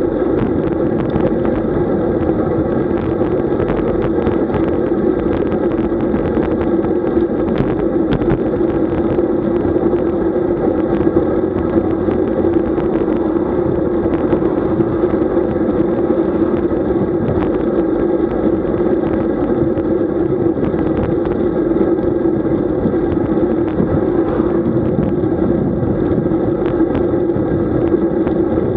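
Steady riding noise picked up by a camera on a moving road bike: continuous wind and road rush with a constant hum, loud and unchanging.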